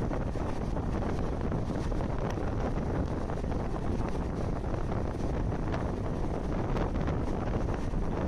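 Wind buffeting the microphone held out of a moving train, over the train's steady rumble as it runs along the track: an even, deep rushing noise.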